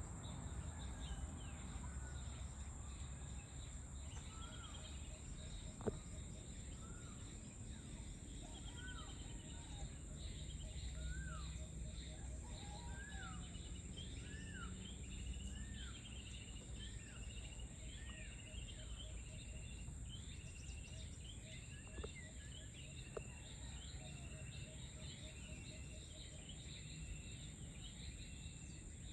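Evening tropical outdoor ambience. A bird repeats a short rising-and-falling call about once a second while other birds chirp, over a steady high insect drone and a low rumble. There is a sharp click about six seconds in.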